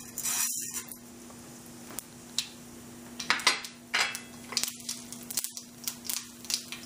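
Mustard seeds dropped into hot oil in a pan, with a brief hiss as they go in, then a faint steady sizzle. Over the last few seconds come many light clicks and clinks.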